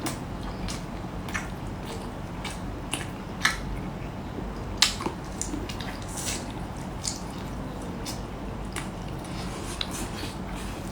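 Close-up wet mouth sounds of a person biting and chewing lobster tail: irregular squishy smacks and sharp clicks. The loudest clicks come about three and a half and five seconds in.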